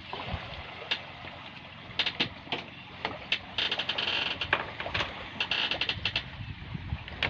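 Clicks and rustling from a plastic oil jug being handled at the engine's oil filler, in short irregular bursts.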